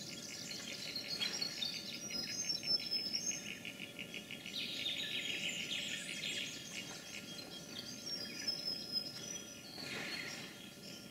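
Birds calling and insects chirping in bushland, with a fast pulsing trill that is strongest in the first few seconds and higher bird whistles over it.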